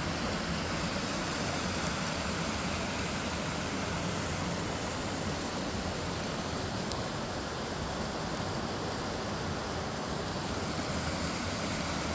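Rocky woodland brook running over stones and a small cascade: a steady, even rush of water.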